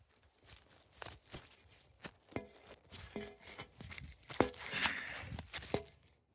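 Close handling noise as a camera is being set up: irregular rustling, scraping and clicks, with a few short squeaks.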